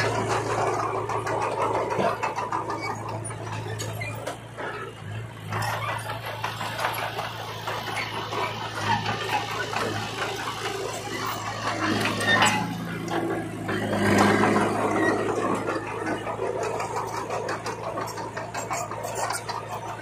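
Small Komatsu crawler bulldozer's diesel engine running steadily under load while its steel tracks clatter and the blade pushes soil and rocks. It gets louder twice, about twelve and fourteen seconds in.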